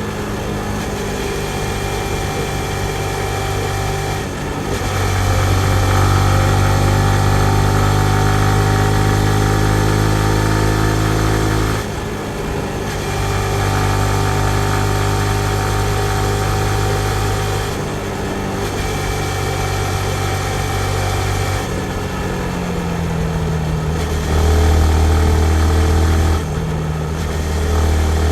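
The single-cylinder engine of a Yamaha MT-15 motorcycle running on the road, mostly at steady revs. Its pitch and loudness step up and down several times as the throttle and gears change.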